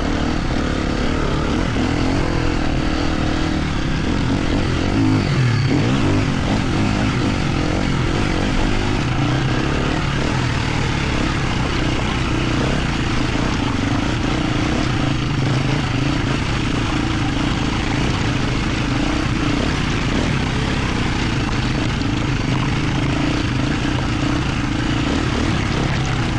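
Dirt bike engine running under way at a fairly even throttle, a steady drone with little change in pitch.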